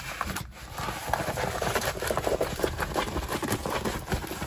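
Diamond-painting canvas with poured glue being reverse-rolled by hand to make it lie flat, giving a dense, irregular run of crinkles and crackles.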